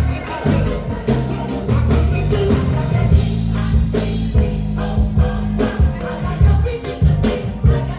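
Gospel music with singing over a heavy bass line and a steady drum beat.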